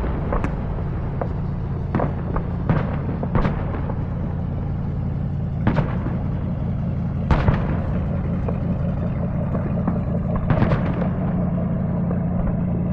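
Fireworks bursting: a run of sharp bangs at irregular intervals, one to three seconds apart, with a quick cluster of bursts near the end, over a steady low hum.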